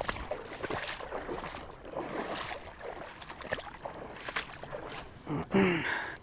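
Footsteps wading through shallow creek water: irregular splashes and sloshes, with a brief voice sound near the end.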